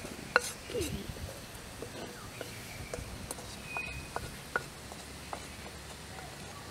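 Chicken wings and vegetables cooking in a metal pan over a wood fire: a faint steady sizzle with scattered pops and clicks. A short high chirp sounds about four seconds in.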